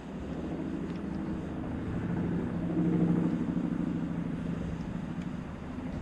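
Firefighting helicopter flying nearby, a steady engine and rotor hum that swells to its loudest about three seconds in, then eases a little.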